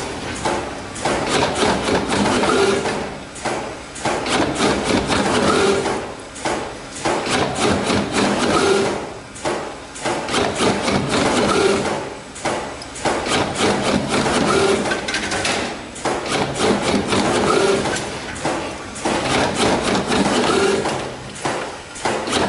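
Automatic bar-forming and cutting production line running: a loud, dense mechanical clatter of rapid knocks that swells and dips about every second or so, with a short recurring tone about every three seconds.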